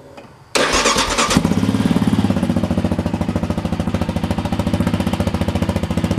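2014 Yamaha Raptor 700's single-cylinder four-stroke engine starting about half a second in and catching within a second. It then idles with an even, rapid pulse through the stock exhaust with its baffle removed.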